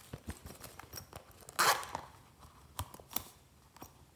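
Zipper of a small plastic handbag being pulled open in one quick rasp about one and a half seconds in, among light taps and clicks from handling the bag.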